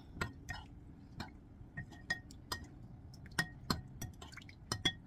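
A spoon stirring soy milk in a ceramic bowl, knocking against the bowl in about a dozen light, irregular clinks, some of them ringing briefly.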